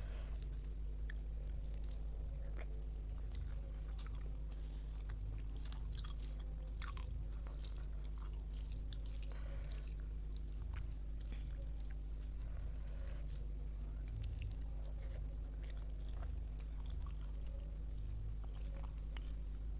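A person chewing and eating a meal of rice and curries, with scattered wet mouth clicks and smacks, over a steady low hum.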